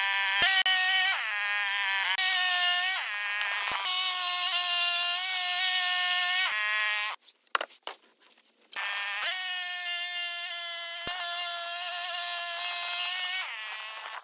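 Gas-powered saw running at high, steady speed, cutting wood, in several short stretches that each rise briefly in pitch as it speeds up, with a pause of near silence a little past the middle.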